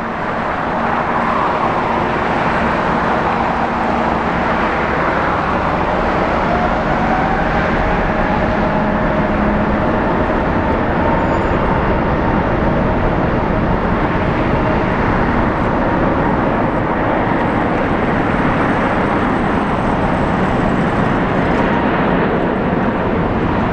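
Korean Air Airbus A380-861's four Engine Alliance GP7200 turbofans at takeoff power as it climbs out: a loud, steady jet roar with whining tones that slide slowly in pitch.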